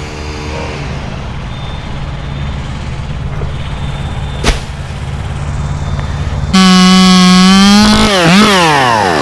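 Chainsaw idling, with a single sharp knock about four and a half seconds in, then throttled up to full revs with a loud steady whine; near the end the revs waver and then fall away as the throttle is released. The saw is working in wet queen palm wood, which is gumming up the bar and chain.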